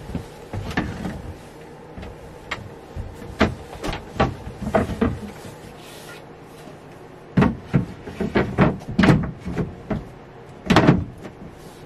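Wooden knocks and clatter of a sailboat's companionway as someone climbs out and sets the wooden companionway boards into their slot from outside. The knocks come singly at first, then in a busier run about seven to nine seconds in, with one more loud knock near the end.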